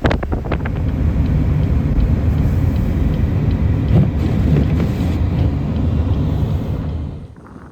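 Blizzard wind buffeting the microphone in a loud, steady low rumble, with a few clicks at the start; it eases off sharply about seven seconds in.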